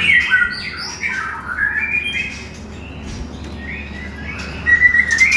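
White-rumped shamas in aviary breeding cages giving many short chirps and calls, with a louder run of calls near the end.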